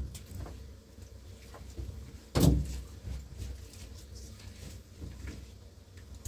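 A single loud thump about two and a half seconds in, with fainter knocks and clatters around it.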